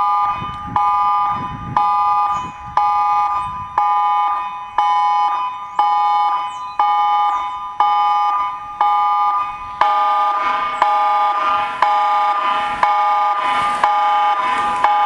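Electronic emergency-alert alarm tone: a chord of high, steady tones that sounds about once a second, each pulse starting sharply and fading. About ten seconds in, extra lower tones join and the alarm grows fuller and louder.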